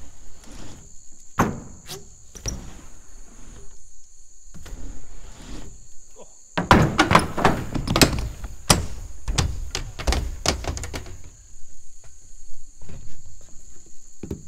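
BMX bike crashing down a ramp after a bail, a run of loud knocks and clatters for several seconds about halfway through, after some scattered knocks of riding. A steady high insect chirr runs underneath.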